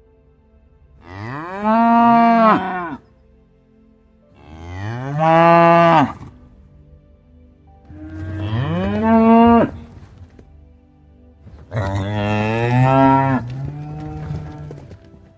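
Cattle mooing: four long, loud calls a couple of seconds apart, each rising and then falling in pitch.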